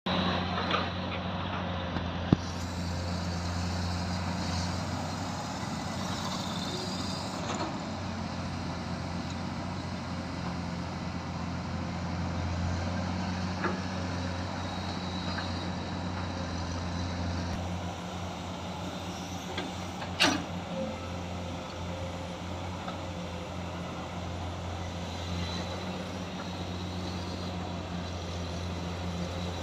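Komatsu long-reach excavator's diesel engine running steadily, with a few sharp knocks, the loudest about twenty seconds in.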